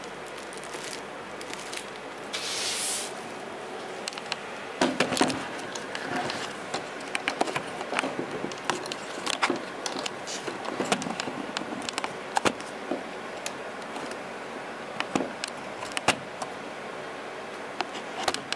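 Handling noise from a plastic-wrapped parcel being unpacked: a short rustle of plastic about two seconds in, a cluster of knocks around five seconds, then scattered sharp clicks and taps.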